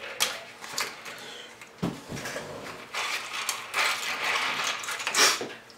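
Ice crunching and clattering in a cup as a spoon digs and stirs through it, with ice being chewed: a string of irregular clicks and crunches, the loudest near the end.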